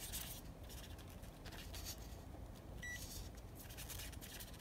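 Faint rustling and scraping of hands and test probes on a resistor's leads, with one short, high electronic beep about three seconds in.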